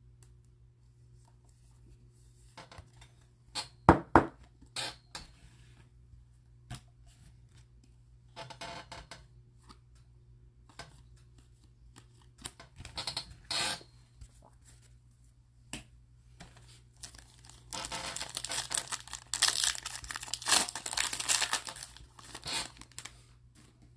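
A foil Donruss baseball card pack being torn open and crinkled, a dense crackling rustle from about 17 s to 22 s that is the loudest part. Before it, scattered short clicks, taps and shuffles of trading cards being handled and slipped into a plastic sleeve, with a sharp double knock about 4 seconds in.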